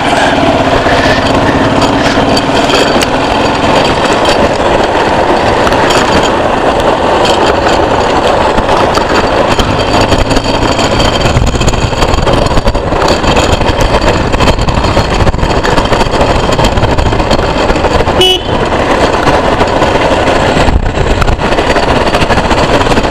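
Motorcycle on the move: a loud, steady rush of engine and road noise with no break.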